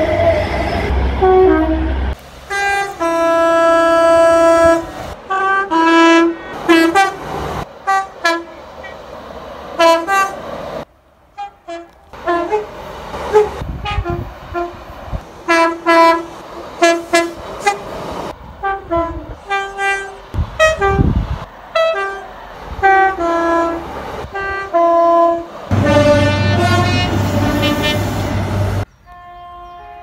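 Passenger train horns sounding two-tone warnings: one long blast, then many short toots in quick runs, from one train after another with abrupt cuts between them.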